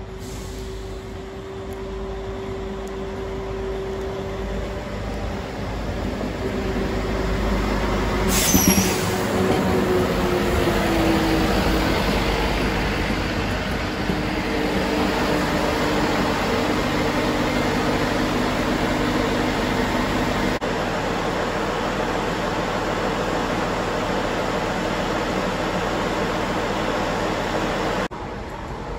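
A Tesmec yellow-and-blue rail vehicle approaching and passing along the platform. Its running noise grows louder, there is a brief high squeal about eight seconds in, and its steady motor tone drops in pitch as it goes by. Steady running noise follows.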